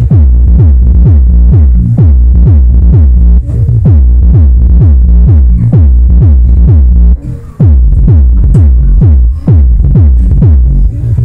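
Bass-heavy electronic music played loud through subwoofers driven by a D900 mini amplifier. It is a fast run of deep bass hits that each drop in pitch, with a brief break about seven seconds in.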